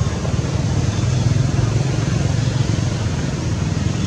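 Steady low rumble of a motor engine running.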